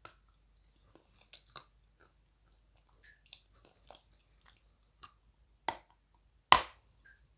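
A person biting and chewing dry lumps of edible clay, giving scattered sharp crunches; the two loudest bites come about five and a half and six and a half seconds in.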